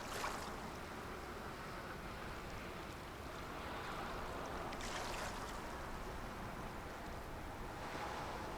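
Small waves washing in over a steady low rumble, with three surges of hiss: one just after the start, one about five seconds in and one near the end.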